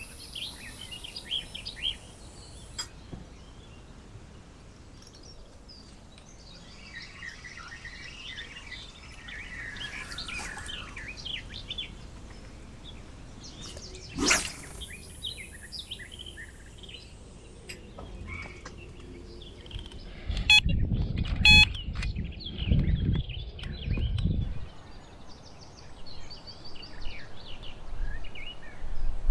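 Birds singing and chirping around the lake, with a single sharp knock about halfway through and bursts of low rumbling in the last third.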